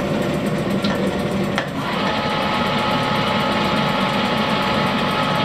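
Warner & Swasey No. 3 ram-type turret lathe running on the low speed of its two-speed motor, a steady mechanical hum. A click comes about a second and a half in, after which steady whining tones join as the headstock lever is worked and the spindle turns.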